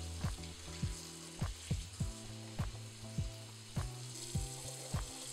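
Tap water running onto romaine lettuce in a metal colander, a steady hiss, under background music with held notes and a steady beat.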